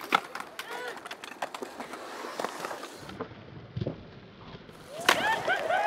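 Skateboard on concrete: scattered clacks and knocks of boards and wheels. About five seconds in, several people shout and hoot at once.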